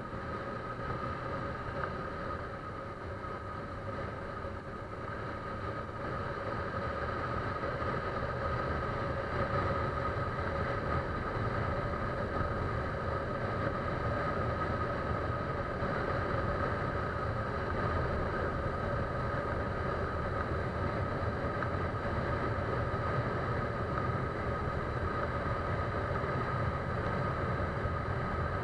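A vehicle engine running steadily, a low rumble with a constant hum, growing gradually louder over the first several seconds and then holding level.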